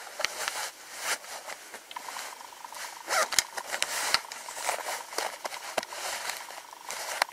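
Nylon waist pack and its padded belt being handled and adjusted: fabric rustling and scraping in short irregular strokes, loudest about three to four seconds in.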